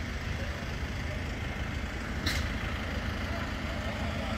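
Steady low rumble of idling emergency-vehicle engines, with one short sharp hiss about two seconds in.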